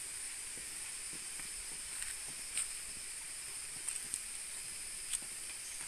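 Rainforest insects droning steadily at a high pitch, with a few light clicks and soft footsteps.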